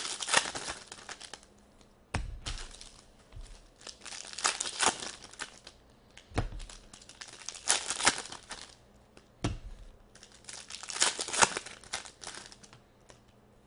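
Foil trading-card pack wrappers being torn open and crinkled by hand, in about six bursts, with a few low knocks between them.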